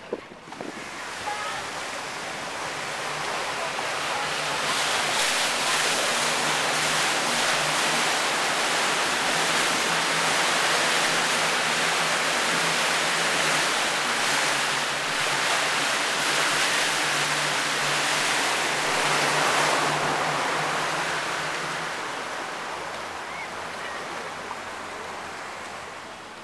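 Rushing water noise from a motorboat, with a faint steady low engine hum under it, echoing inside a corrugated metal culvert tunnel. It swells over the first few seconds, holds loud and then fades away near the end.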